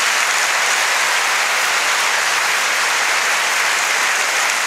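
Live comedy audience applauding steadily.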